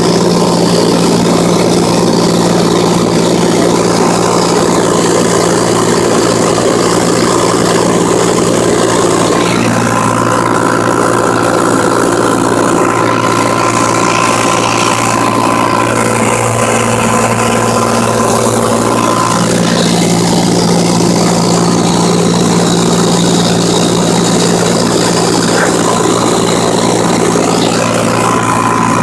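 Cessna 182T's six-cylinder Lycoming IO-540 engine and propeller running steadily in flight, heard inside the cabin as a loud, even drone. Its pitch shifts slightly about ten seconds in and again near twenty seconds.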